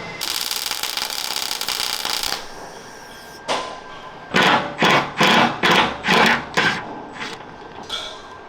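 Hammer blows on steel armour-plate fittings: a run of about seven sharp strikes, two to three a second, starting about four seconds in. Before them comes a couple of seconds of steady hiss that stops suddenly.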